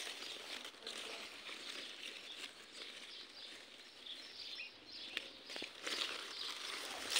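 Strawberry plant leaves rustling as a hand reaches through the plants, an uneven crackle with a few small clicks.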